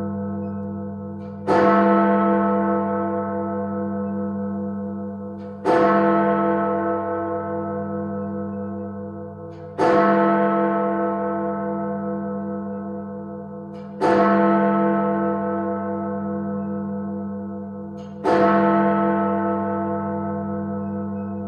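Big Ben, the Great Bell of the Westminster clock tower, striking the hour. Five slow, evenly spaced strikes about four seconds apart, each ringing on and fading under a deep steady hum until the next.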